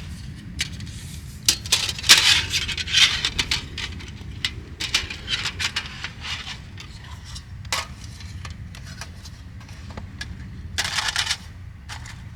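Irregular clinks, scrapes and rustles of objects being handled, over a steady low rumble. The handling is busiest about two to three seconds in and again near the end.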